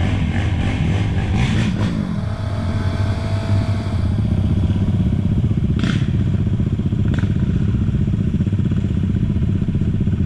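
Off-road bike engine running steadily, with a brief rise and fall in pitch a couple of seconds in and two sharp clicks near the end.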